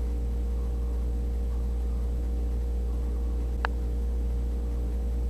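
A steady low hum with a stack of overtones and a faint hiss, and a single brief click about three and a half seconds in.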